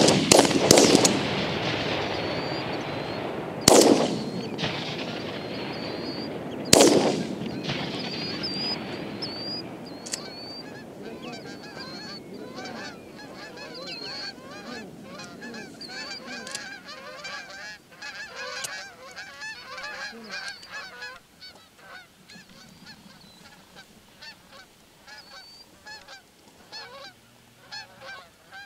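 Three shotgun shots: one at the start, one about four seconds in and one about seven seconds in, each followed by a rush of noise that dies away. After that a flock of Canada geese honks continuously, growing fainter toward the end.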